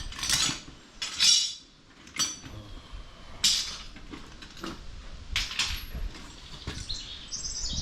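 Metal hand tools clinking and rattling, several sharp knocks and clatters, as they are rummaged through and picked up.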